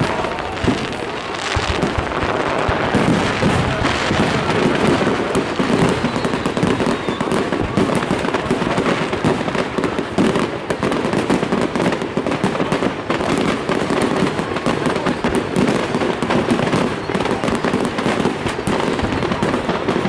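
Fireworks display: a dense, continuous run of bangs and crackles.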